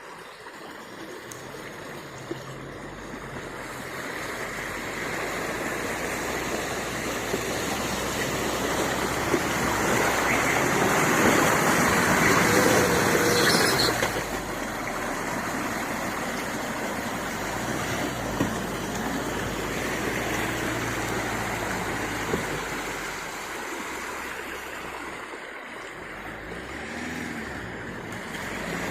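A four-wheel-drive pickup's engine running on a rough off-road track, under a steady rushing noise. The noise builds and then drops off suddenly about halfway through.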